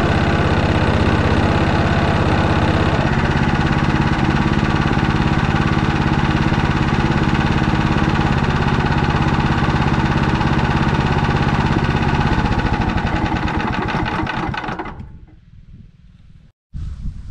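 Motor Sich walk-behind tractor engine running steadily, its note shifting slightly about three seconds in. It then slows and dies away, stopping about fifteen seconds in, and faint outdoor background is left.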